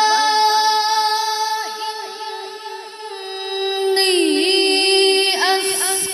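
A boy reciting the Qur'an in the melodic tilawah style into a handheld microphone, holding long notes with rapid ornamental trills. The voice fades midway and swells louder again about four seconds in.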